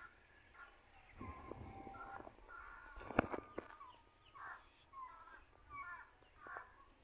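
Birds calling, faint, a run of short calls coming every half second or so in the second half, with faint high chirping early on. A rustle about a second in and a sharp knock a little after three seconds, the loudest sound.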